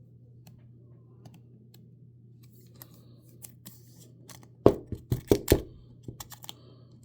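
Rigid plastic top loader and trading card being handled: faint ticks and rustles, then a quick run of sharp plastic clicks and taps about two-thirds of the way in, with a few lighter ones after, as a card is put into the top loader.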